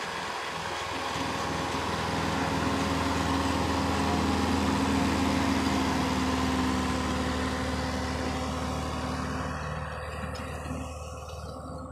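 Massey Ferguson 155 tractor engine running as it tows a line of vintage tractors past, getting louder up to about halfway and then fading toward the end.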